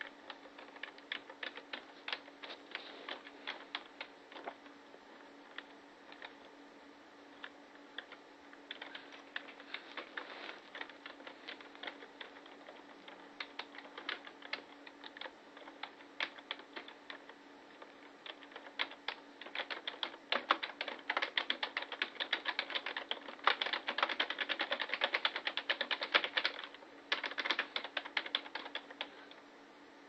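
Typing on a computer keyboard: irregular key clicks that come faster and denser from about two-thirds of the way through, then stop near the end.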